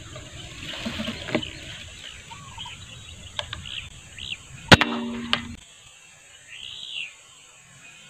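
A CO2 air rifle fires once, a little over halfway through: a sharp crack with a short metallic ring, followed by a smaller click. Small birds chirp now and then before and after the shot over faint outdoor background noise.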